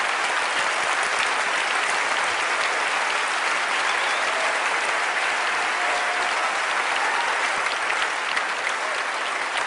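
Large audience applauding steadily, a sustained ovation of many hands clapping at once.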